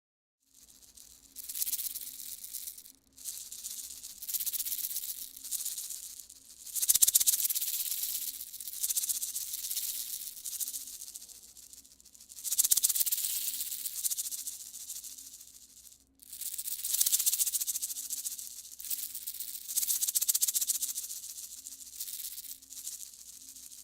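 Small grains or beads rattling in a foley prop, making a fine granular hiss that swells and fades in waves a few seconds long, with brief pauses between them.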